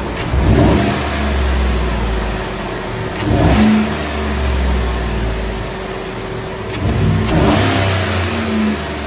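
Chevy Silverado V8 idling with a low rumble and revved in three short blips, about every three to four seconds.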